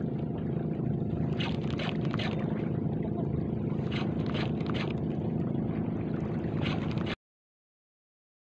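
Steady low engine hum with a few short, sharp sounds over it. It cuts off abruptly about seven seconds in.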